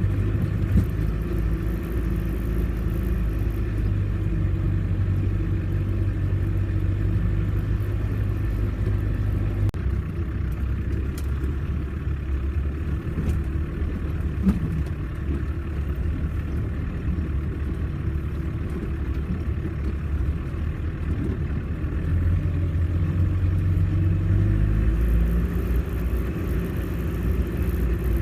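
Off-road 4x4's engine running steadily at low revs with a low rumble; its note eases off about a third of the way in and picks up again near the end.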